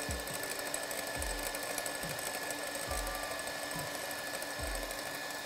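An electric hand mixer running steadily, its wire beaters whisking egg yolks and sugar in a glass bowl, with a soft low thud about every second.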